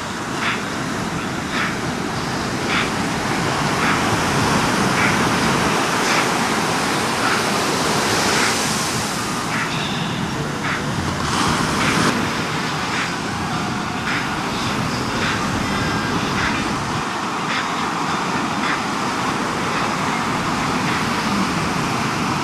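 Ocean surf breaking on the reef, a steady roar that swells a few seconds in, with wind buffeting the microphone.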